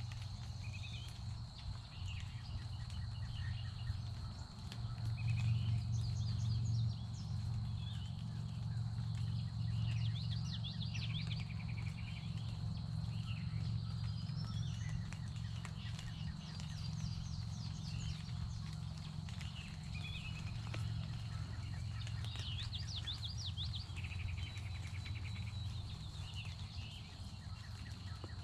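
Birds singing repeatedly, short chirped and trilled phrases again and again, over a thin steady high tone and a steady low rumble.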